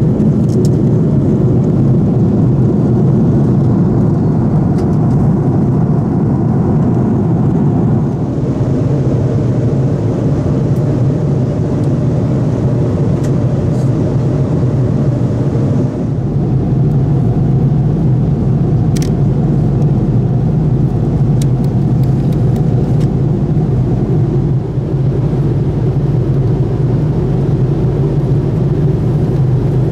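Steady cabin noise of an Airbus A330-300 at cruise: the low drone of its Rolls-Royce Trent 772B engines and the rush of air past the fuselage, heard from inside the economy cabin, with a few faint clicks past the middle.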